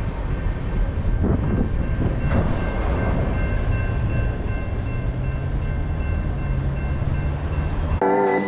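Freight train rolling by with a steady low rumble of wheels on rail and a low engine drone that comes in about five seconds in. Music starts just before the end.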